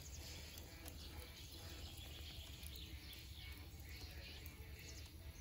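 Faint outdoor ambience with a steady low background hum and distant birds chirping.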